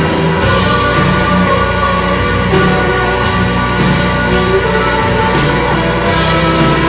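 Dream-pop band music: sustained layers of synthesizers and guitars over a steady drum beat.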